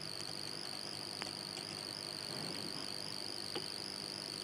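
Steady high-pitched whine over a low hiss of background noise, with a few faint clicks of computer keys being typed.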